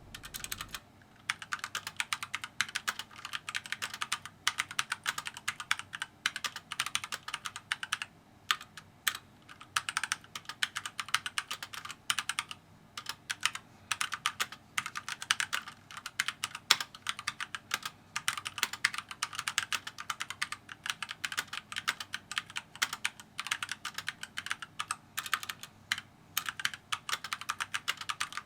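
Keychron K4 v2 mechanical keyboard being typed on continuously and fast for a sound test, a steady stream of key clicks and thocks with no pauses.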